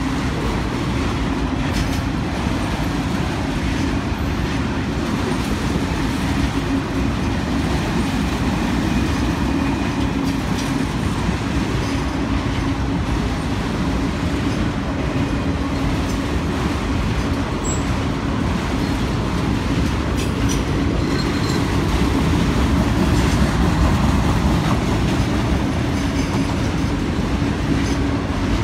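Freight train of autorack cars rolling past at a grade crossing: a steady rumble and clatter of steel wheels on the rails, a little louder toward the end.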